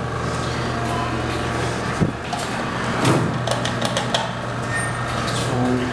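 Dover traction service elevator doors sliding, with a sharp knock about two seconds in and a few clicks around three seconds in, over a steady low hum.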